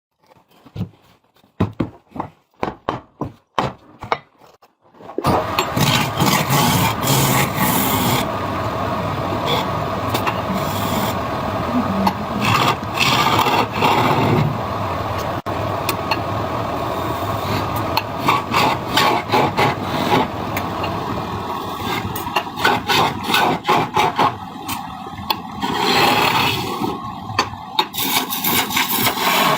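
Wood lathe turning: a few scattered knocks, then from about five seconds in a continuous rough scraping of a turning tool cutting into the spinning wood, with many short rattling catches.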